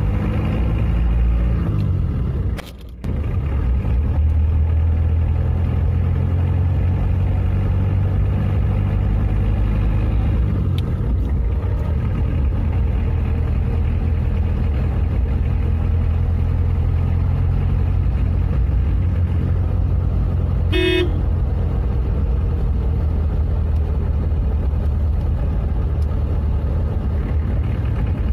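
Car engine running as heard from inside the cabin while driving. The sound drops away briefly about three seconds in, and the engine's pitch falls again around eleven seconds, as the car is shifted up from third to fifth gear. A short horn toot sounds about twenty-one seconds in.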